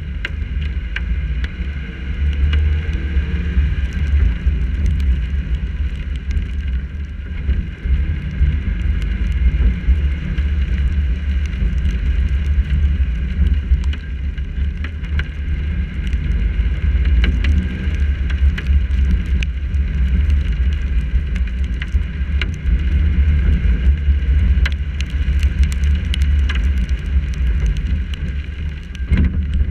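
Steady low rumble of a car driving on wet streets, picked up by a camera mounted on the hood, with scattered small ticks of raindrops striking the camera.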